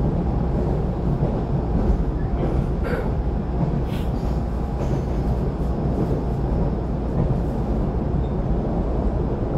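Steady low rumble of an EMU700 electric multiple unit heard from inside the passenger car as it runs at speed, with a few faint clicks about three to four seconds in.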